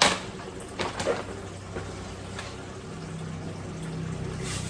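A sharp knock of kitchenware, then water running steadily from a kitchen tap into a container, growing fuller-sounding toward the end.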